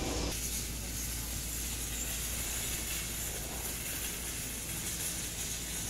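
Steady airport apron noise: a hiss over a low hum. Just after the start the mid-range rumble drops away and the hiss grows brighter.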